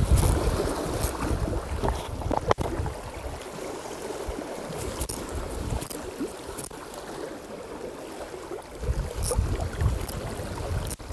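Strong gusty wind buffeting the microphone, rumbling in gusts at the start and again about nine seconds in, over the wash of rough sea water.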